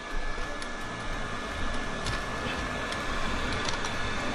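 Electric hot-air blower running steadily with a thin high whine, heating the screen glue so the cracked glass can be pried off. A few faint light clicks sound over it.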